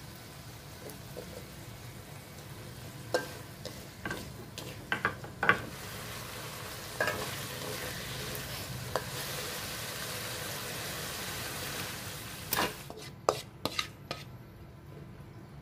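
Stir-frying in an aluminium wok: a spatula scrapes and knocks against the pan while petai beans, tomato and shallots sizzle, the sizzle growing louder midway. A quick cluster of knocks near the end comes as the wok is scraped out.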